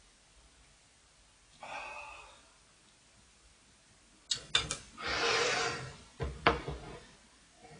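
Dishes being moved around on a table: a few sharp knocks as a plate and a glass bowl are set down, with a sliding scrape between them.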